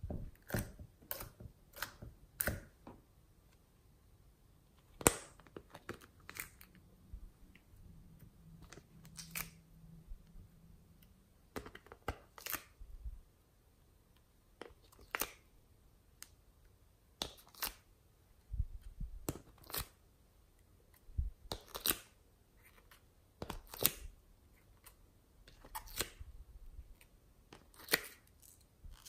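Irregular sharp clicks and light crackles, one every second or two, from coloured clay duck shapes being worked out of a plastic mould and pressed onto white slime, with a few dull knocks in between.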